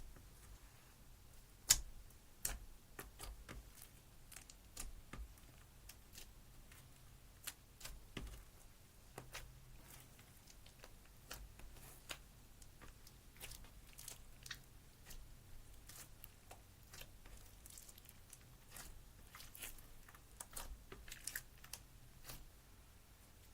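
Slime being handled: faint, irregular sticky clicks and small pops, with one louder click about two seconds in.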